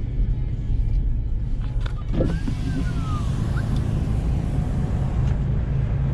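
Steady low rumble of a car driving, heard from inside the cabin, with a brief cluster of clicks and short squeaks about two seconds in.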